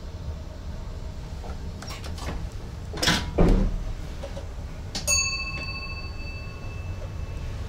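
Cab of an NS ICM electric train running: a steady low rumble with scattered knocks, the loudest a heavy thump about three seconds in. About five seconds in comes a single clear bell-like ding that rings for a second or two.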